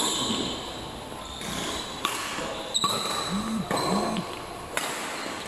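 Badminton rally: sharp cracks of rackets hitting the shuttlecock, the first a smash right at the start, then several more hits roughly a second apart, with shoes squeaking on the court, all echoing in a large hall.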